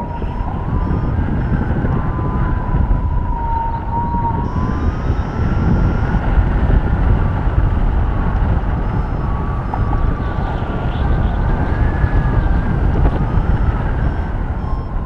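Wind rushing over the camera microphone in paraglider flight, a steady loud rumble, with a thin tone that drifts slowly up and down in pitch behind it.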